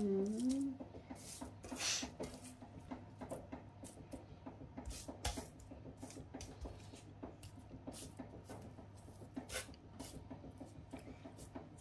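Silicone-tipped kitchen tongs picking up and turning asparagus spears on a parchment-lined metal oven tray: scattered light clicks and taps with soft rubbing of paper, over a faint steady hum.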